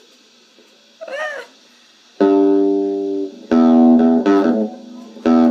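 Guitar strummed to start a song: one chord rings out about two seconds in, then a run of strummed chords. A short rising-and-falling vocal sound comes about a second in.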